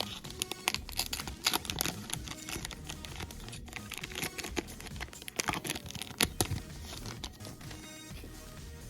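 Plastic trading card pack wrapper crinkling and tearing as it is ripped open and handled, with many irregular crackles. Background music plays underneath.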